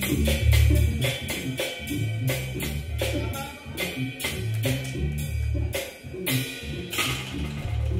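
Live jazz organ quartet playing, with the drum kit to the fore: quick snare and cymbal hits and kick drum over low organ bass notes.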